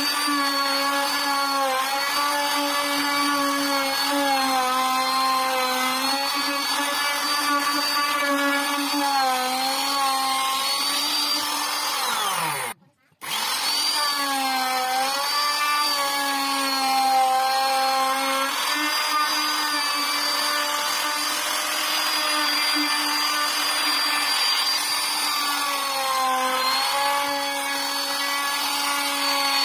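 Hand-held electric trim router running as it cuts a carved pattern into a wooden panel, its high motor whine dipping and wavering in pitch as the bit is loaded. About halfway through it winds down, stops for a moment and then starts up again.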